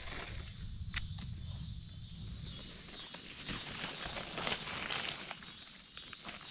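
Footsteps rustling and crunching through forest leaf litter in irregular short ticks, with insects chirring steadily in the background.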